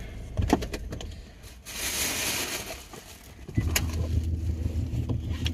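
Plastic takeout bag rustling and crinkling as it is handled, with a few sharp clicks. About two-thirds of the way through, a steady low hum comes in.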